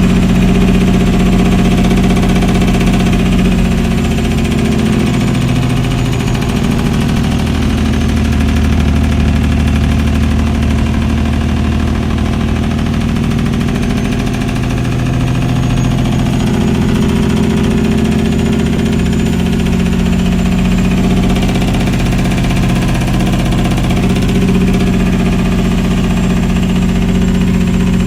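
Caterpillar 3406E inline-six diesel exhausting through 7-inch straight stacks on a Peterbilt 359, running on its Jake (engine compression) brake on a downhill grade: a loud, continuous exhaust note whose pitch dips and rises a few times as the engine speed changes.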